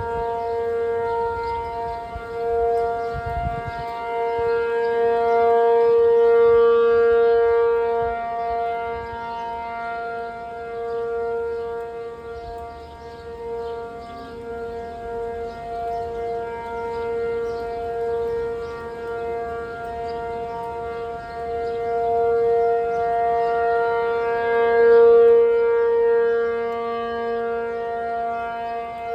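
P-50 outdoor warning siren sounding its steady alert tone, one unchanging pitch with strong overtones, signalling a tornado warning. It swells and fades in loudness, loudest about six seconds in and again near the end.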